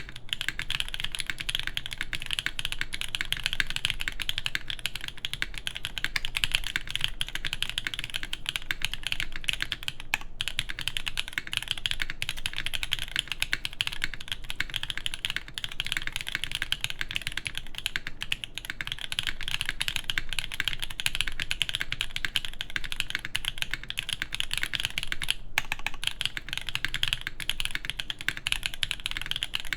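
Continuous typing on a JJW x Mino Keys Line Friends TKL mechanical keyboard with lubed Black Cherry Pie switches, a full aluminium plate and DCX keycaps: a dense, even stream of key clacks with a few brief pauses.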